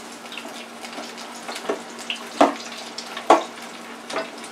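Battered onion rings sizzling in hot oil in a small electric deep fryer, a steady hiss. A few sharp clicks stand out about once a second from the metal tongs used to turn and lift the rings.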